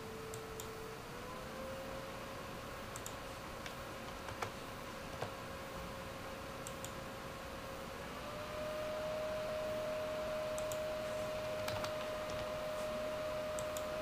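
Twin cooling fans of an ASUS GTX 560 Ti DirectCU II graphics card whirring, heard inside a closed mid-tower case. Their steady hum steps up in pitch twice as the fan speed is raised from 60% to 70% about a second in, then to 80% about eight seconds in, and it grows louder at the second step. Scattered clicks are heard throughout.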